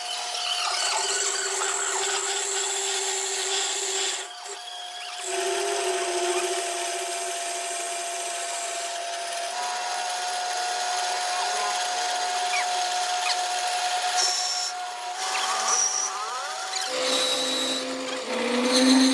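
A power tool machining metal: a steady whine with a high scraping hiss. It breaks off briefly about four seconds in and drops lower in pitch near the end.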